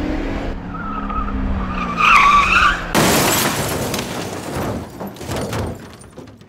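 Car engines running as tires screech for about two seconds, then a sudden car crash with breaking glass about three seconds in, the debris noise fading away.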